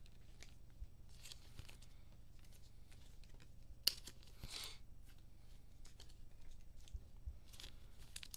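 Trading cards and their packaging handled by hand on a tabletop: soft scattered rustles, with one sharp click about four seconds in followed by a short rustling scrape, over a faint steady hum.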